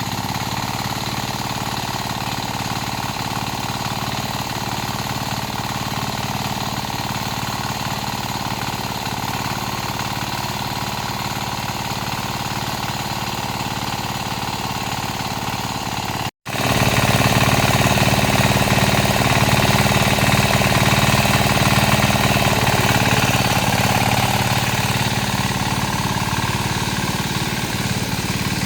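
Mini tractor engine running steadily while pulling a harrow through a muddy rice field. About sixteen seconds in, the sound cuts out for an instant and comes back louder.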